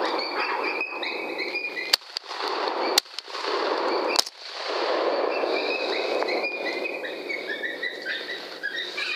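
Rifle shots at a coyote: three sharp cracks about a second apart, starting about two seconds in, with a rushing noise and high, wavering animal cries between them.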